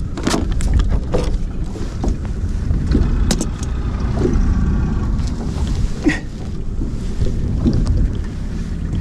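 Steady low rumble aboard a small fishing boat, with wind on the microphone and a few sharp knocks about a third of a second, three seconds and six seconds in.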